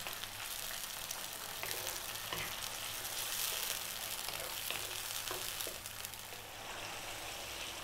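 Chicken pieces frying in a canned-tomato sauce with onion and garlic in a nonstick frying pan, a steady sizzle, while a wooden spoon stirs the pan with a few soft scrapes.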